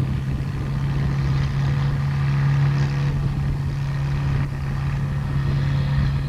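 Small antique tractor's engine running steadily under heavy load as it pulls the sled down the track, the drone swelling slightly a couple of seconds in.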